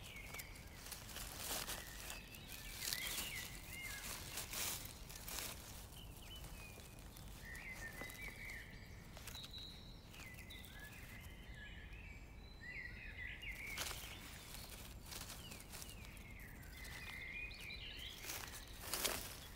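Dry leaf litter and twigs rustling and crackling in several short bursts as a porcini is picked by hand from the forest floor, with small birds chirping on and off.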